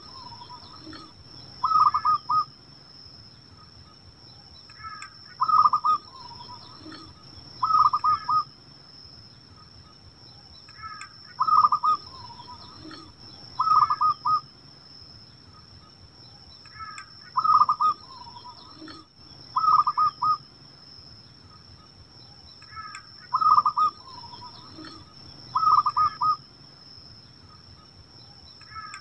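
Zebra dove (perkutut) cooing: short rolling phrases of several quick notes, repeated in pairs about two seconds apart with a longer pause between pairs.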